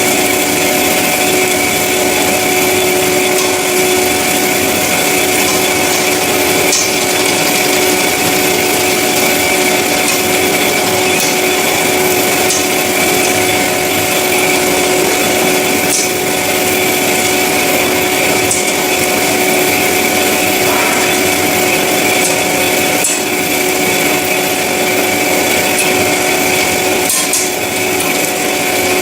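CORMAK S-200R semi-automatic metal-cutting band saw running and sawing through metal stock: a steady whine of several held tones over a dense, even hiss, with a few faint ticks.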